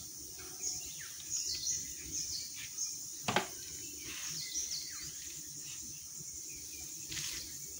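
Forest birds calling again and again in short, high, falling chirps over a steady high insect drone, with one sharp snap about three seconds in.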